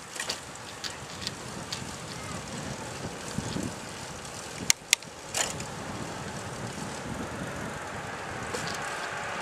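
Wind over the microphone and road noise from a moving bicycle, with scattered sharp clicks, two of them close together about halfway through. A steady hiss grows louder near the end.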